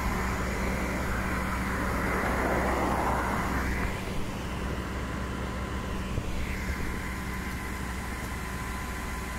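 MTS vacuum excavator truck's engine and hydraulics running steadily during tipping: a low hum with a steady whine over it. A hissing rush in the first few seconds dies away about four seconds in.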